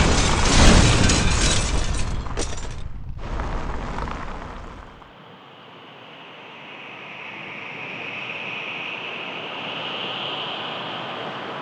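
Strong wind blasting the microphone in loud rumbling gusts, which stop abruptly about three seconds in and again about five seconds in. After that, a quieter, steady rush of wind slowly builds.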